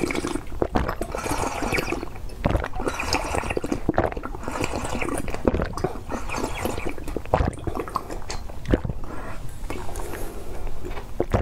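Close-miked slurping and swallowing as a seed drink is sucked from the spout of a bird-shaped glass: an irregular run of wet sips and small clicks.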